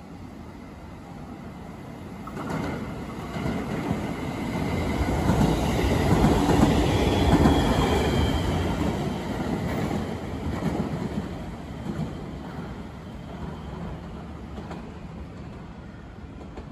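JR West 521 series electric multiple unit passing close by on the track, with a few sharp clicks from the wheels on the rails. It grows louder from about two seconds in, is loudest near the middle as it goes by, and then fades away.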